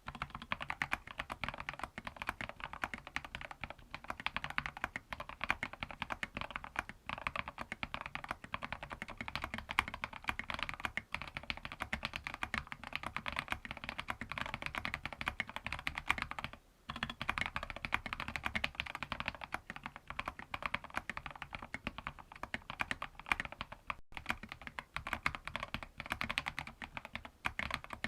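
Mechanical keyboard with Gateron Pro Yellow linear switches being typed on quickly and steadily, a dense run of key clacks with one brief pause a little past the middle.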